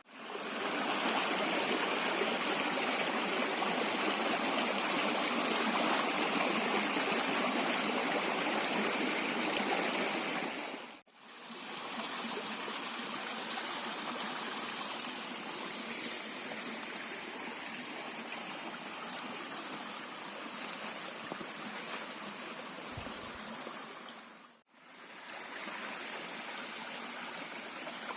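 Clear-water jungle stream running in a steady rush, dropping out briefly twice, about 11 and 25 seconds in, where one take cuts to the next.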